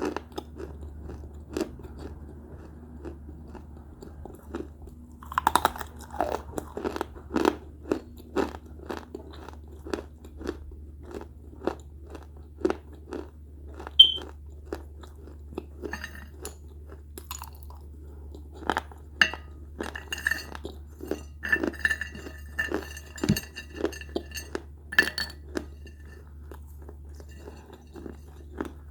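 Close-miked crunching and chewing of small baked clay pots: an irregular run of sharp, brittle crunches, with one especially loud crack about halfway through. A steady low hum runs underneath.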